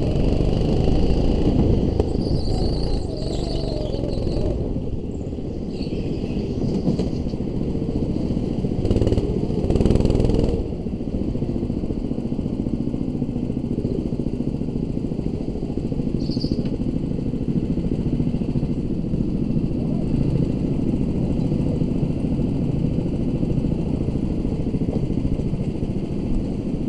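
Go-kart running flat out on an indoor track, heard from onboard: a continuous engine rumble with rattling, briefly louder about nine to ten seconds in.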